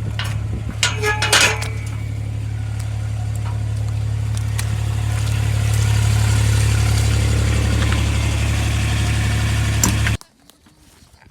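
Vehicle engine running steadily, getting a little louder in the middle, then cutting off suddenly near the end. A few sharp clinks about a second in.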